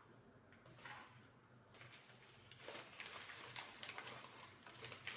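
Faint rustling of dried herbs as a spoonful is scooped and tipped into a container, with a few light clicks. It grows busier about halfway through.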